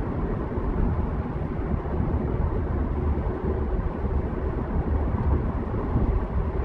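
Steady low rumble of a car idling in stopped traffic, picked up from inside the cabin.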